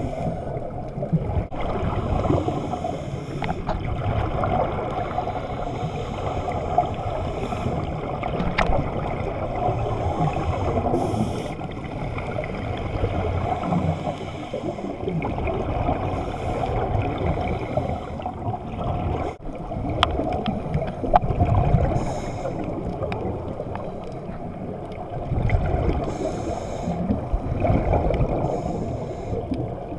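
Underwater sound heard through a GoPro's waterproof housing: a steady muffled water rumble, with gurgling swells of scuba regulator exhaust bubbles every few seconds and scattered sharp clicks.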